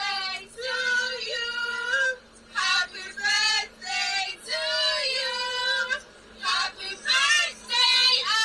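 High-pitched female singing in short phrases of held and gliding notes, with brief gaps between them.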